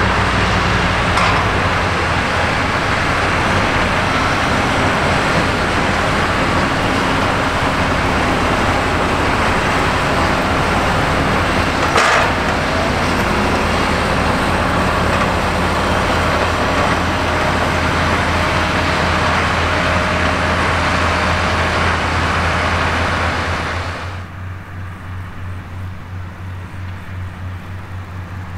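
Fendt tractor diesel engines running steadily under field work, mixed with the rush of haymaking machinery. There is one sharp click about halfway through. For the last few seconds the sound drops to a quieter, thinner hum.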